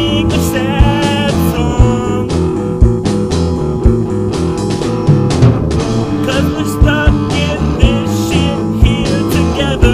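Rock band recording with electric guitar, bass and drums over a steady drum beat, the lead guitar holding wavering, bent notes.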